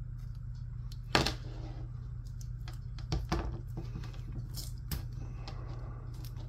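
Hands handling small parts on a workbench: a few sharp clicks and knocks, the loudest about a second in, with light rustling, over a steady low hum.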